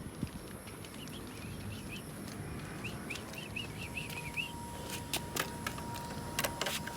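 A bird chirping a quick run of short calls over a low outdoor rumble, followed later by a few sharp clicks and a faint steady high tone.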